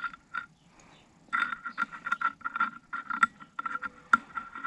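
Irregular metallic clicks and scrapes of a small hand tool's tip working a slotted adjusting screw into the steel bore of a tractor hydraulic valve body, sparse at first and busier from about a second in.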